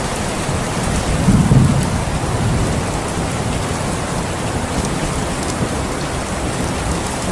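Steady heavy rain falling, with a low rumble of thunder swelling briefly about a second in.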